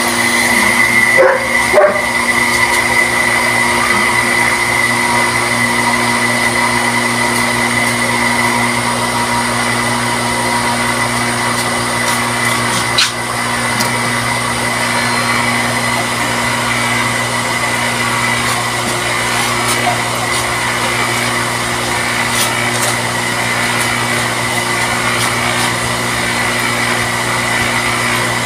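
Small electric water pump motor running steadily, with a hum and a high whine and a few knocks near the start. It is running without drawing water yet, still clearing air from the suction pipe before it primes.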